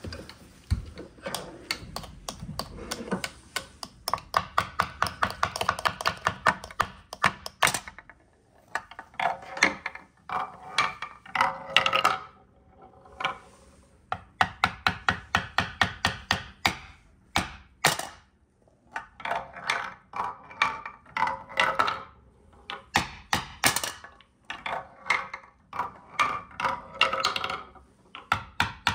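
Wooden mallet knocking wooden balls through the holes of a wooden pound-a-ball toy. The balls roll and clatter down its zigzag wooden ramps in fast runs of clicks, with a few louder knocks between the runs, several times over.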